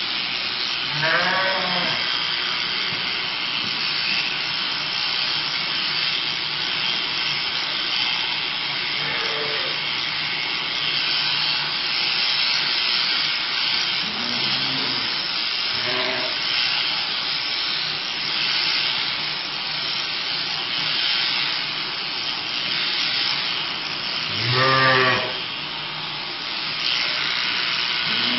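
Sheep shearing handpiece buzzing steadily through the fleece. A sheep bleats several times, loudest near the end.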